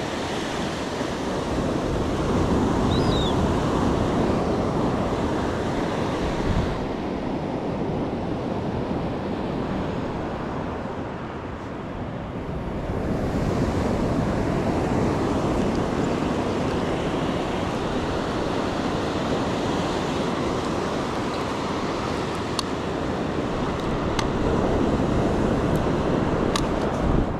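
Ocean surf breaking and washing up the beach in slow swells, with wind buffeting the microphone. A few faint clicks sound near the end.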